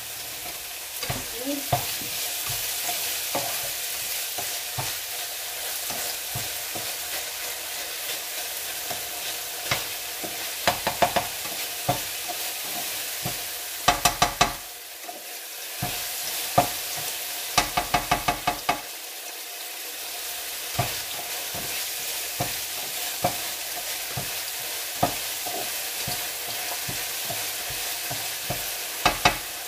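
Tuna, tomato and onion sizzling steadily in oil in a nonstick frying pan. A plastic spatula stirs the food and scrapes and clicks against the pan in several short, quick runs.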